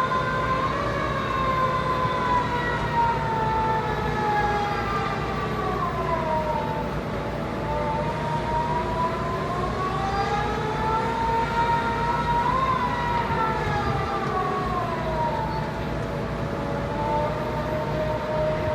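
Emergency vehicle siren in a slow wail, its pitch sliding down and back up in long sweeps of several seconds each, over a steady low rumble.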